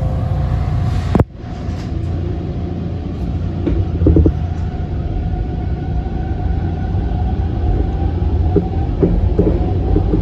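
Toronto subway train (TTC T1) pulling out of a station into the tunnel: a steady low rumble with a faint motor whine, and scattered clicks from the wheels over the track. A sharp click and brief drop in level about a second in.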